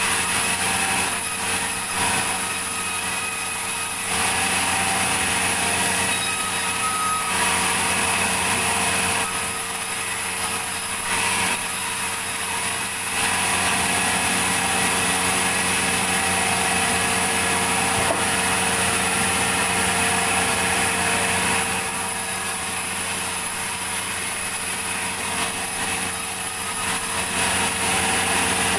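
Sawmill saw running and cutting through a log over a steady motor hum. The cutting grows louder for several seconds at a time, about four seconds in and again from about thirteen to twenty-two seconds, and eases off between.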